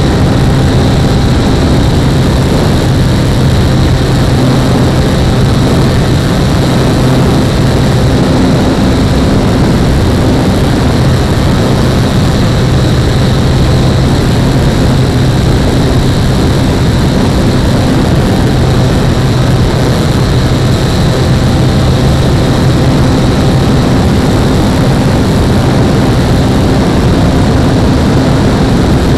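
RC model SR22 trainer plane's motor and propeller running steadily in flight, with a steady hum and heavy wind rush, as picked up by an action camera mounted on the plane.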